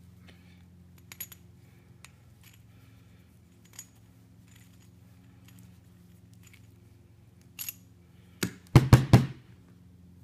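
A hand-held coax cable prep tool being twisted around LMR-400UF coax to strip the jacket further back, giving scattered small clicks and a faint scrape over a low steady hum. Near the end comes a quick run of several loud knocks.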